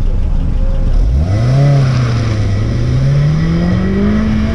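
Honda S2000's four-cylinder engine launching hard from a standstill. About a second in, the revs climb sharply, dip briefly, then climb steadily again as the car pulls away.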